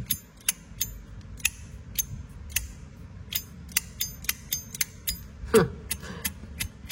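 A used silver slim wristwatch being worked by hand so its mechanism can be heard: sharp, irregular clicks, about two a second.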